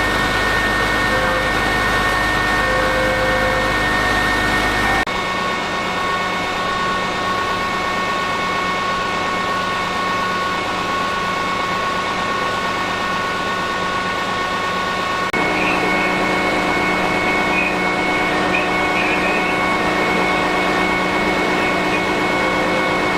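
Fire engine's engine running steadily with a constant multi-tone whine. The sound changes abruptly twice, about five and fifteen seconds in.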